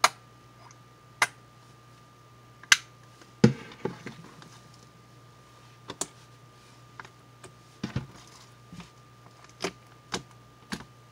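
Pink slime being kneaded and squeezed by hand with lotion mixed in, giving irregular sharp clicks and pops with a few softer squelches, over a steady low hum.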